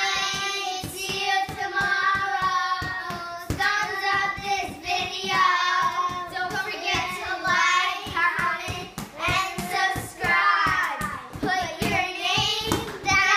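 Children singing together loudly, with many sharp hand slaps or claps punctuating the song.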